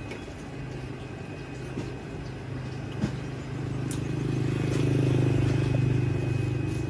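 A passing motor vehicle's engine: a low hum that swells from about halfway through and eases off slightly near the end. A single knock about three seconds in.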